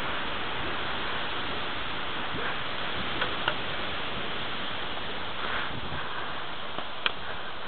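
Steady rushing noise of a mountain bike riding over a grass lawn, picked up on a bike-mounted action camera's microphone, with a few sharp clicks: two about three seconds in and one near the end.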